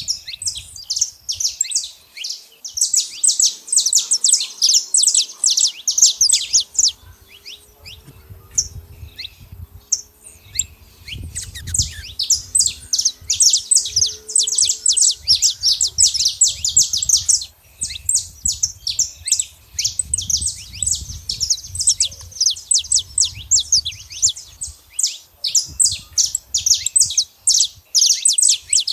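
Saffron finch singing: long runs of rapid high chips and trills, with two short pauses.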